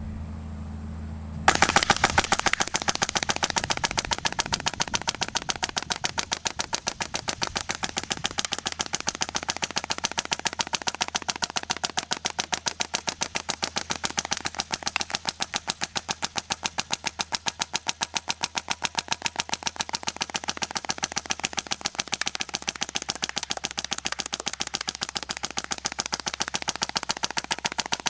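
Airsoft 8mm M2 machine gun firing a long continuous burst of rapid, evenly spaced shots. A low hum comes just before the firing starts, about a second and a half in.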